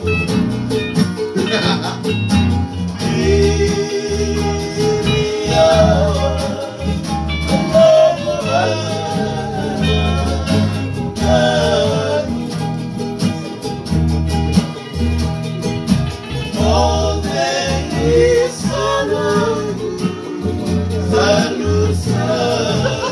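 Men singing together to strummed acoustic guitars and a ukulele.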